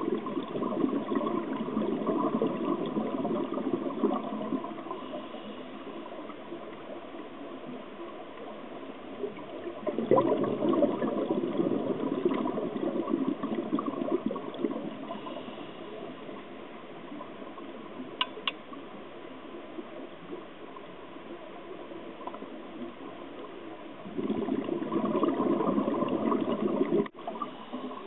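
Underwater bubbling from a scuba diver's regulator exhaust: three long bursts of exhaled bubbles, each a few seconds, with quieter pauses between them as the diver breathes in.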